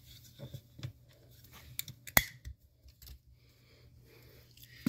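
Cutters snipping through a recliner's release cable: one sharp snap about two seconds in, among a few lighter clicks of handling.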